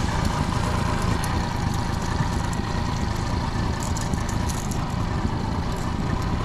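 Honda 30 hp four-stroke outboard motor running steadily on a small aluminium boat.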